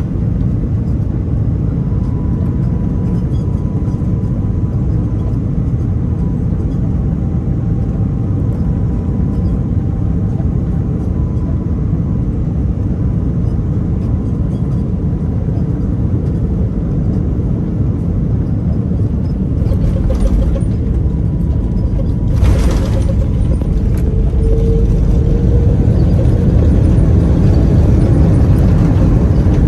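Steady low rumble of an Airbus A330-300's Rolls-Royce Trent 700 engines and airflow, heard from inside the cabin by the wing. Two short knocks come about 20 and 22 seconds in.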